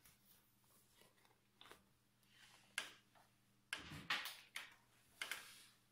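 Bare feet stepping onto a glass-topped bathroom scale on a tile floor: a sharp tap about halfway through, then a few soft knocks and scuffs as the weight settles onto it.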